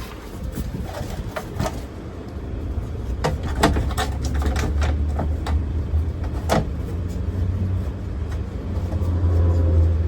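A vehicle engine running with a steady low hum that grows louder about halfway through and again near the end, with scattered clicks and knocks.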